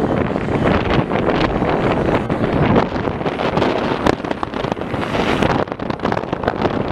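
Wind buffeting the camera microphone: a loud, gusty rush with no clear tone, dipping briefly about five and a half seconds in.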